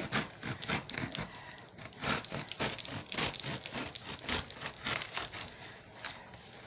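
A hand scraping and tapping at a cardboard shipping box: a string of short, irregular scratches and ticks, a few a second.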